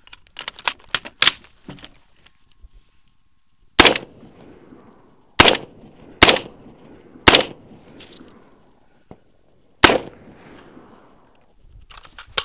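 Five single shots from an AR-15 carbine firing 5.56 mm ammunition, spaced one to two and a half seconds apart, each followed by a short echo. Lighter clicks and rattles of handling come before the first shot and again near the end.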